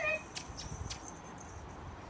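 A puppy's short, high whimper right at the start, then only faint background.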